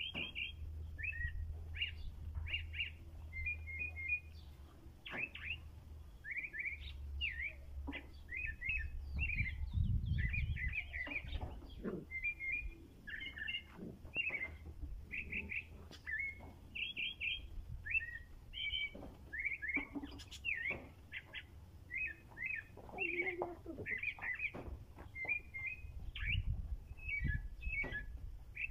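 Caged white-throated thrush singing: a steady run of short, varied whistled phrases, many given two or three times in a row, with a low rumble underneath at times.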